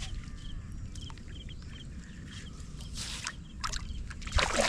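A small bird chirping in short, repeated double notes over a low steady rumble, with a brief noisy burst near the end.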